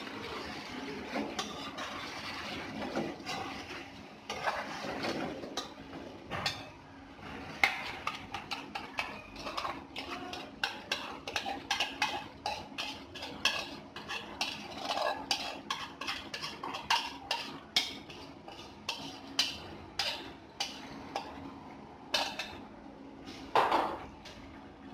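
A spatula stirring and scraping in a stone-coated frying pan of chicken and potatoes, with many sharp knocks and taps of the spatula against the pan, about one or two a second, the loudest near the end.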